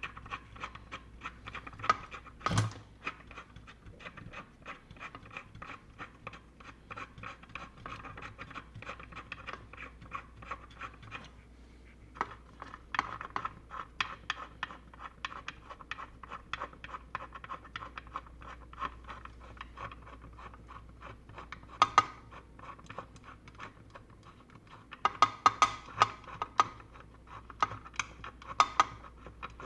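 Dense small clicks and scraping as a threaded antenna connector is screwed into a hole in the enclosure, with a short pause about eleven seconds in and sharper, louder clicks near the end.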